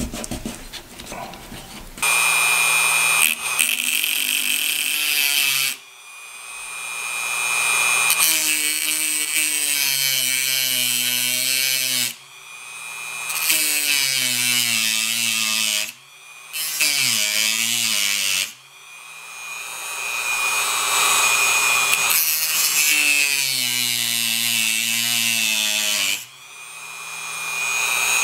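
Dremel rotary tool with a worn cutoff disc grinding through a nickel-silver N scale rail to cut a gap in it. A high-pitched grinding whine starts about two seconds in. It is switched off and spun back up about five times, and its pitch wavers as the disc bites.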